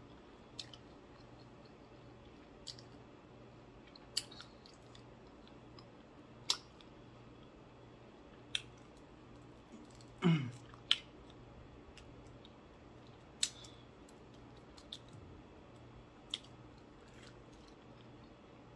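Close-up chewing of crispy fried flounder, with sharp crunches of the breading every second or two over a quiet background and a louder crunch about ten seconds in.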